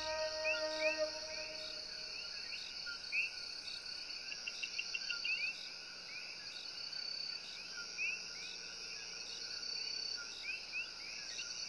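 Chorus of coquí frogs calling at dusk: many overlapping short rising "ko-KEE" notes over a steady high insect trill. Background music fades out in the first two seconds.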